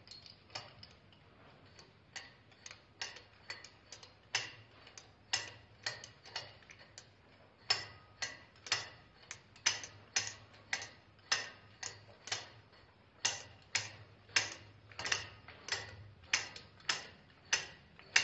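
A steady series of sharp metal clicks, about two a second, getting louder about eight seconds in, as a threaded fitting on a transfer pump's piston rod is unscrewed by hand against a wrench.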